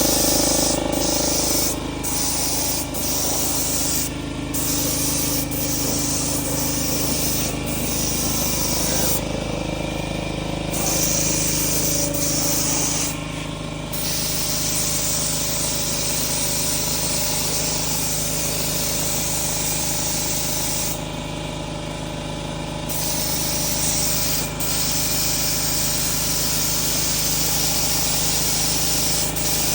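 Paint spraying onto a truck frame: a steady hiss that stops briefly several times as the sprayer is let off between passes, over a low steady hum.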